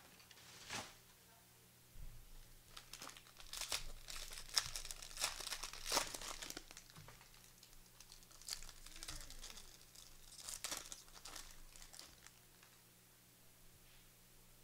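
Foil trading card pack wrappers being torn open and crinkled, in two spells of irregular crackling.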